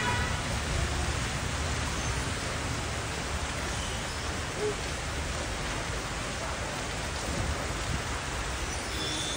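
Steady rain falling, an even hiss with no breaks, with a faint short chirp about halfway through.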